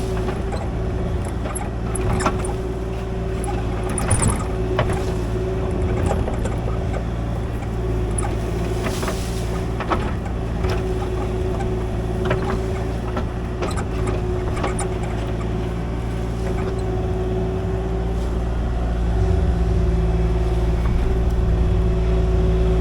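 Kubota KX040 mini excavator's diesel engine running steadily with a constant whine, with scattered metallic clanks every second or two. The engine grows louder about nineteen seconds in.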